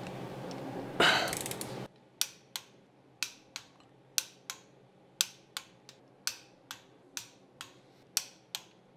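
Torque wrench ratcheting in short swings while cylinder head nuts are tightened. It gives sharp single clicks, about two a second and mostly in pairs, after a brief rustle about a second in.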